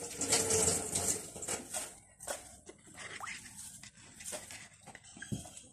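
Broth simmering in a pan of noodle soup, bubbling and popping, with a denser hiss of bubbling in the first second and a half and scattered pops after.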